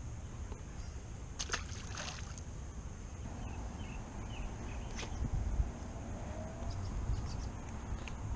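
A small bass released by hand splashes into the pond water about a second and a half in, followed by a few knocks, over a steady low rumble of wind on the microphone.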